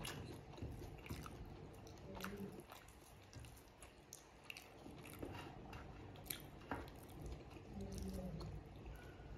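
Faint sounds of a person eating rice and pork curry by hand: chewing, and soft squishes of fingers mixing rice on a plate, with scattered small clicks.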